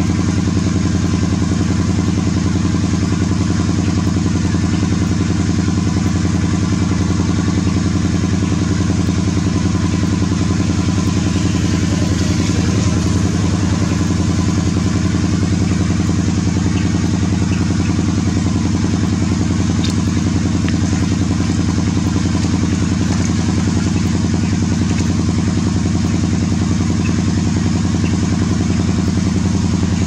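A steady low mechanical hum at one unchanging pitch, engine-like in kind.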